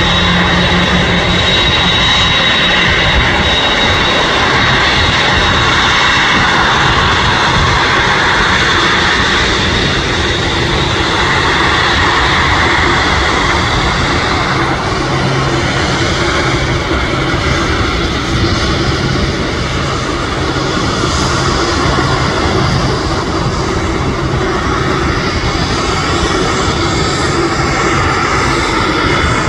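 Boeing 747 freighter's jet engines running at taxi power as it taxis past: a steady jet rush with a high whine.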